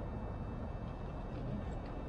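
Scissors cutting white aircraft covering fabric, with a few faint snips near the end, over a steady low rumble.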